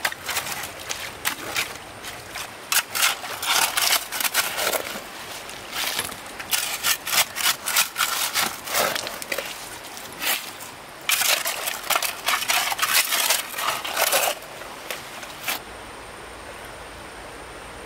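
Irregular bursts of crackling, rustling handling noise, then a steady, even hiss from about 16 seconds in.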